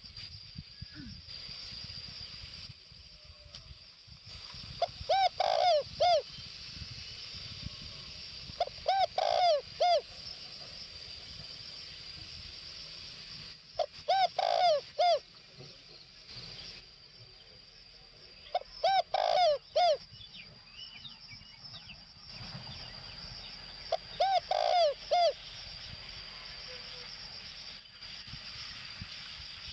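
Spotted dove cooing: five short phrases of several low notes each, about five seconds apart, over a steady high-pitched whine.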